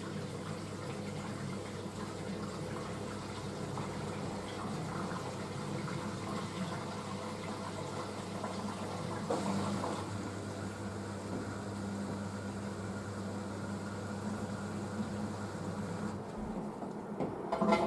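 Panasonic washing machine on its wool cycle, water running and gurgling inside it over a steady low hum. Near the end a louder, briefly pitched sound sets in.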